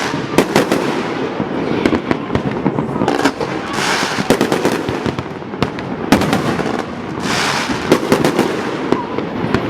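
Fireworks display: a dense run of sharp bangs, with swells of crackling hiss every few seconds.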